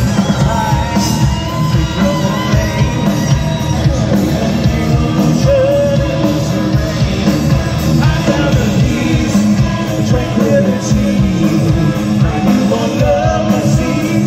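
Hard rock band playing live: electric guitars and drums, with singing over the top.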